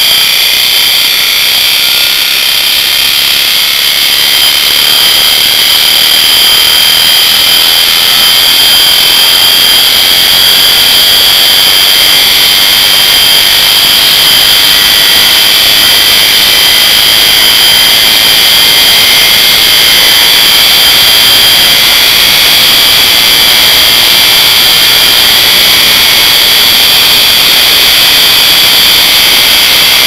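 Washing machine universal motor, its field poles wired in series, fed from a microwave oven transformer and running flat out at extreme over-speed: a loud, steady, high-pitched whine.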